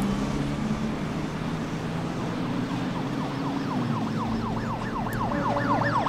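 A low steady drone, joined about halfway through by a fast yelping siren-like tone: quick rising pitch sweeps about three a second, growing louder toward the end.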